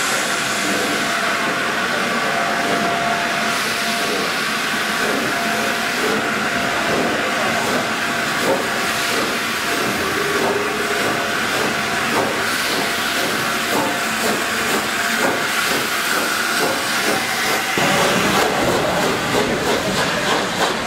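BR Standard Class 8 Pacific steam locomotive 71000 Duke of Gloucester hissing steam steadily as the train moves past. A low rumble joins in near the end as the coaches roll by.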